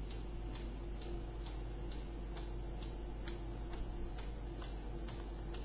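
Regular ticking, about two sharp ticks a second, over a low steady hum.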